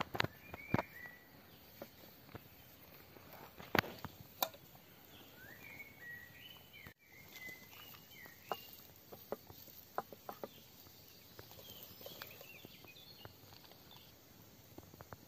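Scattered clicks and knocks of a wooden spoon on a copper serving tray as rice is spooned out, the sharpest in the first few seconds. Birds chirp in the background with short, sliding notes.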